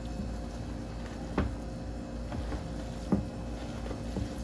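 Lo mein noodles and cut vegetables being tossed in a bowl, with a few sharp knocks against the bowl. The loudest two come about one and a half and three seconds in.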